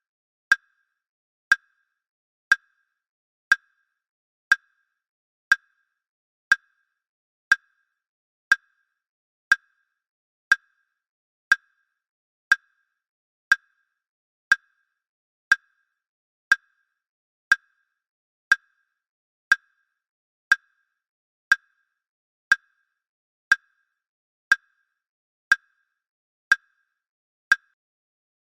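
Countdown-timer sound effect: a short, sharp clock tick once a second, evenly spaced.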